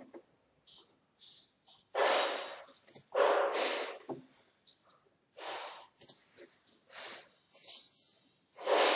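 A person breathing in and out close to the microphone: a series of hissing breaths about one every second or so, the loudest about two seconds in and near the end.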